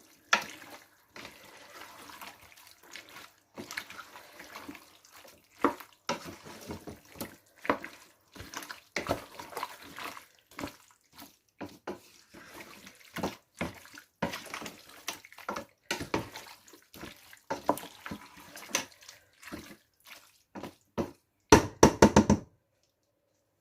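A spoon stirring a wet chicken, tomato and masala mixture in a cooking pot: irregular squelches and scrapes against the pot, with a louder stretch near the end that stops suddenly.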